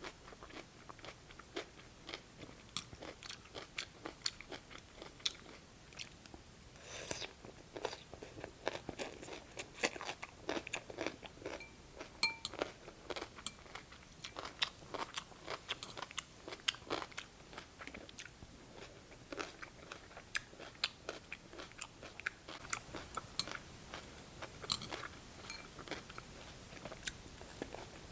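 Close-up crunching and chewing of crisp cucumber from cold cucumber soup, with many sharp, irregular crunches in quick succession.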